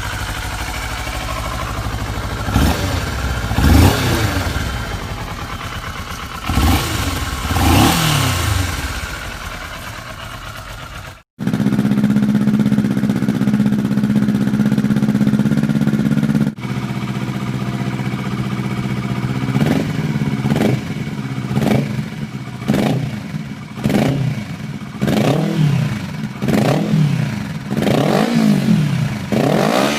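Kawasaki Ninja 400 parallel-twin engine revved with the throttle: two rev sweeps rising and falling early on, then a steady idle, then a run of quick, repeated throttle blips that come faster toward the end.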